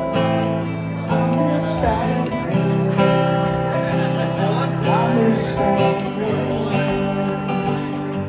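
Music: strummed acoustic guitar chords, changing every second or so.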